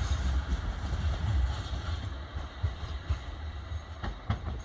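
Light-rail tram running away along the track, its low rumble growing fainter as it recedes, with a few sharp clicks about four seconds in.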